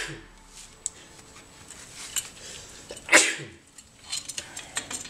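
Small metal clicks and taps as rear drum brake parts are fitted by hand with pliers, the parking-brake cable being hooked to the shoe. About three seconds in there is one short, loud burst of breath from the mechanic.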